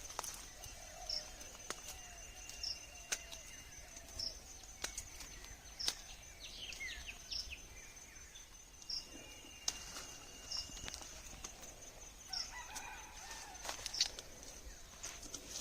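Birds calling outdoors: a short high note repeats about every second over a steady high tone, with faint longer calls and a quick run of chirps about six to seven seconds in. Scattered light clicks run through it.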